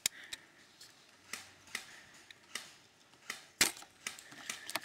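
A handful of short, sharp clicks and knocks, irregularly spaced, with the loudest one a little past halfway.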